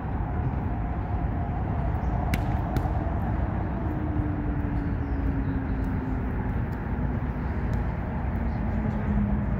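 Steady rumble of traffic on the elevated roadway overhead, with a low drone that slowly falls in pitch over the second half. A few sharp taps stand out about two to three seconds in.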